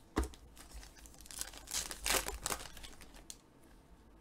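Trading-card pack wrapper crinkling and tearing as a pack is opened and the cards are handled, with a sharp click just after the start and the loudest rustling about two seconds in.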